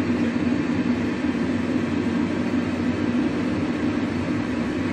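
Steady cockpit rumble and hum of a Boeing 767 flight simulator on an autoland approach, constant throughout with a low droning tone.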